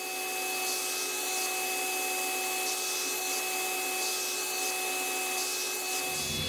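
Table saw and its dust extraction running steadily: an even whirring hum with a few high, steady whining tones and no change in load.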